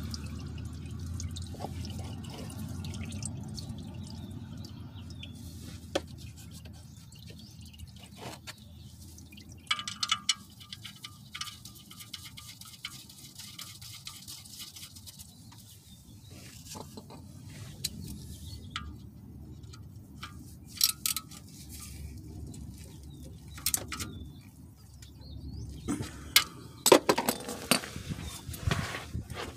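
Used engine oil pouring and dripping from the oil pan of a 2.2 L Ecotec engine into a catch pan during an oil change. Scattered sharp clicks of handling run through it, and louder knocks cluster near the end.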